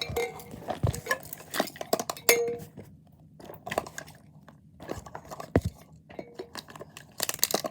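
Small fidget toys clattering and clinking together in irregular knocks and clicks as they are handled and sorted through in a pile.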